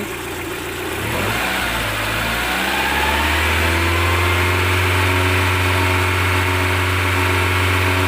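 Rover K-series 1.8 four-cylinder petrol engine of a Land Rover Freelander, revved up from idle about a second in and then held steady at a raised speed. At this higher RPM it runs okay; its rough idle is put down to a faulty camshaft position sensor signal that forces group-fire injection.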